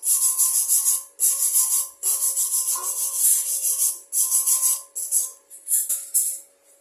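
Electric stick-welding arc crackling and sizzling in irregular bursts about a second long, with short breaks between them, over a faint steady hum.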